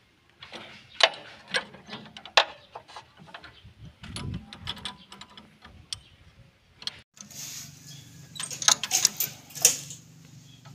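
Sharp metallic clicks and taps of a wrench and feeler gauge on the valve rocker arms and adjusting nuts of a single-cylinder diesel engine as the valve clearance is set. There is a click every second or so at first, then a quicker run of clicks near the end.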